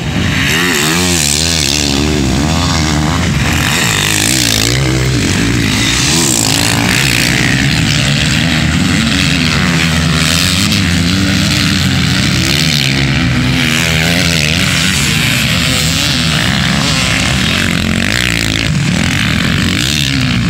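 Several motocross motorcycles racing on a dirt track, their engines revving up and down over and over as the riders accelerate, shift and pass close by.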